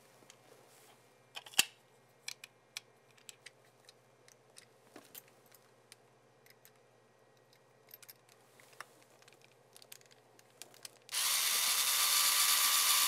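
Scattered light clicks and taps, one sharper near the start, as a screw is set in its hole on the tip of a cordless electric screwdriver. About eleven seconds in, the electric screwdriver's motor starts and runs steadily, driving the screw in.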